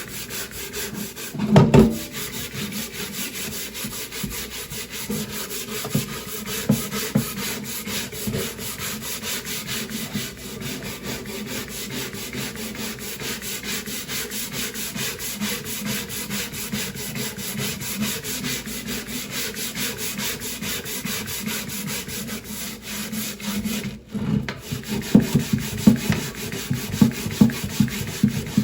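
A wooden chopping board being scrubbed: continuous rough rubbing strokes against the wood. There is a single knock about a second and a half in, and near the end the strokes turn heavier and more separate.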